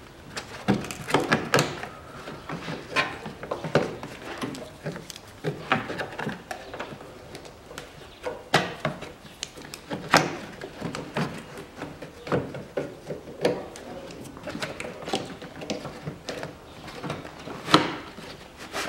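Plastic windshield cowl panel being pried and pulled off its seal by hand and screwdriver: irregular plastic clicks, knocks and scraping, with a sharp loudest knock near the end.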